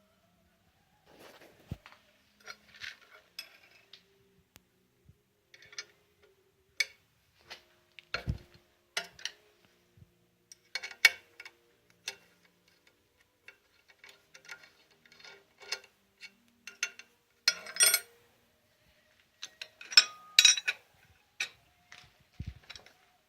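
Metal parts and tools being handled, giving irregular light clinks and clicks with a few louder metallic knocks, the loudest around the middle and in the last few seconds. No machine runs under them.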